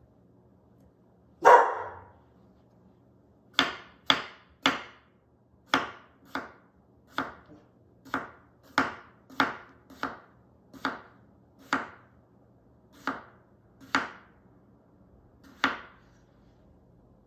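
Chef's knife slicing a small red potato thin on a wooden cutting board: one louder knock about a second and a half in, then about fifteen sharp taps of the blade on the board, roughly one to two a second.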